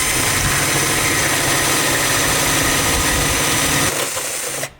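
Power drill running steadily under load, boring through a carbon fiber panel, then stopping suddenly just before the end as the bit breaks through.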